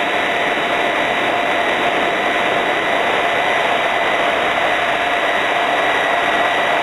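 Radio-controlled Hurricane 550 helicopter heard from its own onboard camera in flight: motor and rotor running at a steady pitch, a constant whine over a rushing noise.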